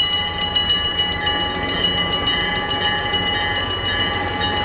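Railroad crossing warning bell ringing steadily, with rapid, even strikes over a sustained ring: the crossing signals are active for an approaching train.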